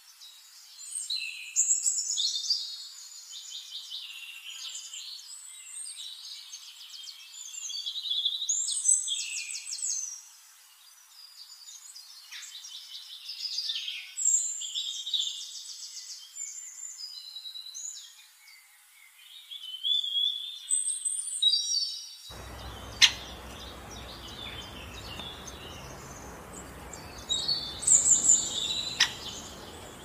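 Small songbirds singing: a run of high trilled and chirping phrases with short pauses between them. About three-quarters of the way through, a steady low background hiss comes in, along with two sharp clicks.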